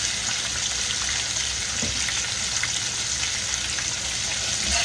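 Catfish fillets deep-frying in hot grease: a steady crackling sizzle.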